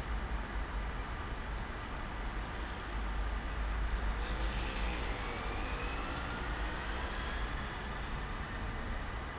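Steady rumble of road traffic and waiting vehicles, with a louder vehicle passing about four seconds in.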